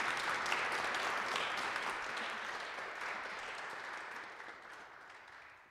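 Audience applauding, the clapping thinning and dying away toward the end.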